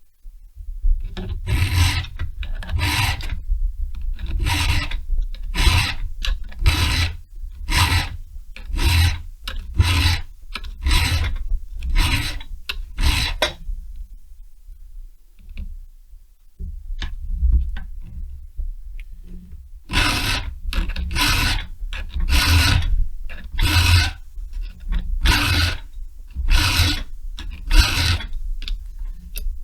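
Hand file sharpening a chainsaw chain's cutters, regrinding full-chisel teeth to a milling angle. Repeated rasping strokes come about one and a half a second, with a short pause about halfway through before the strokes pick up again.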